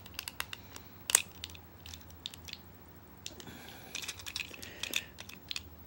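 Small plastic clicks and ticks from a Transformers Titans Return Highbrow action figure being handled and its parts moved, with one sharper click about a second in and a soft rustle of hands on plastic toward the end.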